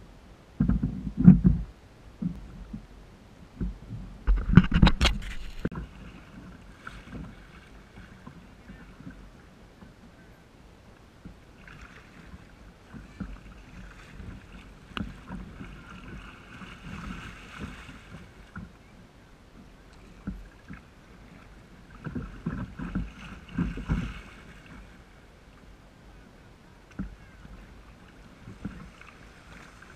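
Water splashing and lapping around a Wilderness Systems Tarpon 120 sit-on-top kayak as it is paddled through surf, with some wind on the microphone. A few heavy knocks come in the first six seconds.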